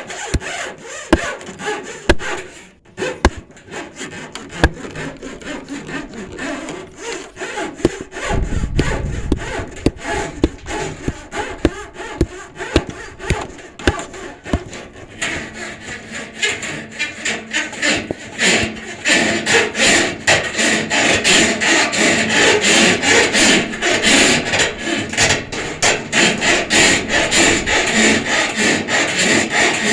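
Saw cutting wood in a continuous run of quick, repeated strokes, louder and fuller from about halfway on.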